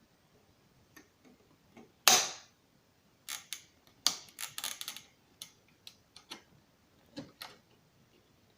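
Computer parts being handled: scattered small clicks and knocks, a louder knock about two seconds in, and a quick run of clicks around four to five seconds in.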